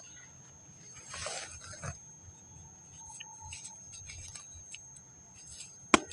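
Dry packed sand being crumbled by hand: soft gritty crunching in short, scattered bursts, with one sharp crack just before the end.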